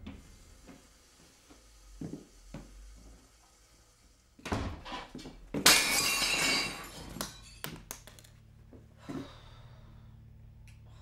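A few soft knocks and thuds, then a sudden loud crash about four and a half seconds in, followed by a louder, longer crash of over a second; scattered knocks after it.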